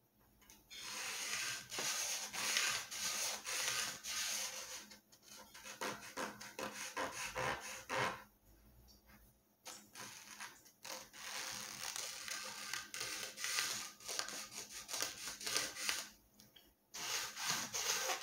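Sharpie-inked wooden popsicle stick rubbed along the joint between a plywood fin and a model rocket body tube, in long scratchy strokes with short pauses between them.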